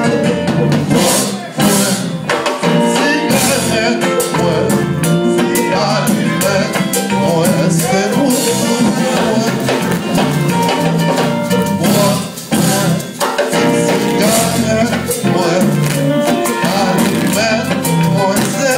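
Haitian compas band playing live: drums, bass and guitar in a steady dance groove, with some singing. The music dips briefly twice, near the start and about two-thirds of the way through.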